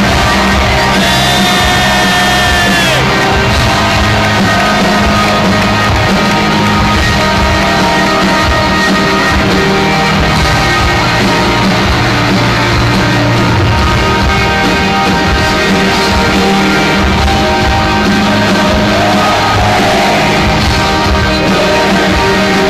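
A live rock band playing loud amplified music in a large hall, with crowd voices singing and shouting along.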